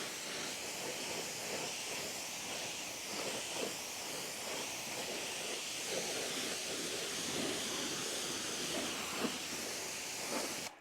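Water spray rinsing a motorcycle after its wash, a steady hiss with irregular spattering as the water hits the bike; it cuts off suddenly near the end.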